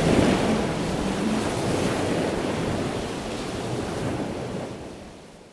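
Sea waves washing on the shore, a steady rush of noise that fades out near the end.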